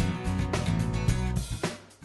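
Intro music with a drum-kit beat, dying away near the end.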